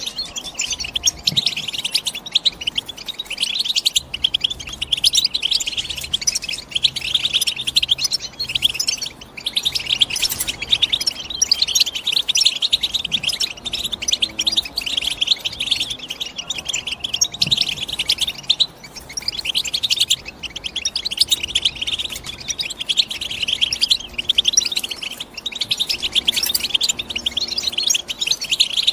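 European goldfinch singing: a fast, continuous twittering of chirps and trills, with a short break about two-thirds of the way through.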